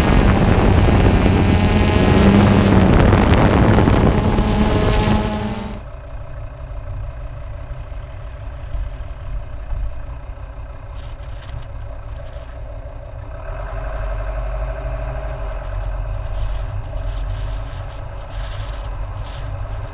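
A light aircraft's engine drones steadily under loud wind rush. About six seconds in the sound cuts off abruptly to the quieter, steady engine and tyre rumble of a vehicle driving a winding road, which grows slightly louder partway through.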